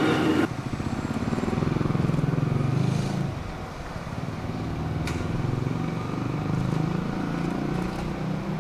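Low, uneven mechanical rumble from one of Kotoden's 1926-built vintage electric railcars, swelling and easing off, with a faint tick or two. It comes right after loud wheel squeal that cuts off abruptly about half a second in.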